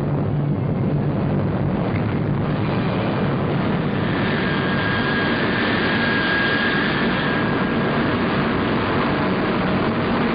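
Atlas rocket engines at liftoff: a loud, steady, dense rush of exhaust noise, with a thin high tone over it for a few seconds midway.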